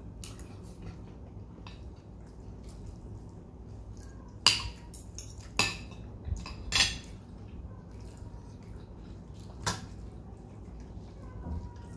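Cutlery clinking against plates and dishes during a meal: several separate sharp clinks, the loudest about four and a half seconds in with a short ring.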